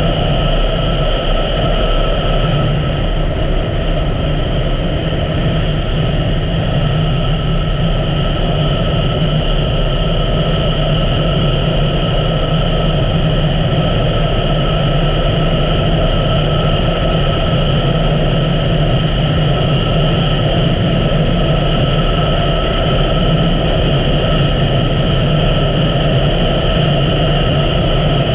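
2017 Honda Africa Twin's parallel-twin engine running at a steady cruising speed, mixed with wind and road noise, held at an even pitch with no change in revs.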